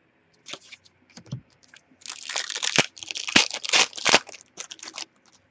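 A hockey card pack wrapper being torn open and crinkled: a few small crackles, then about three seconds of dense tearing and crinkling.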